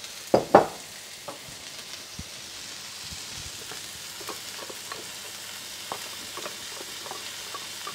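Sliced garlic and oil sizzling in a hot wok among stir-fried vegetables: a steady frying hiss with scattered small crackles, and a short sharp knock about half a second in.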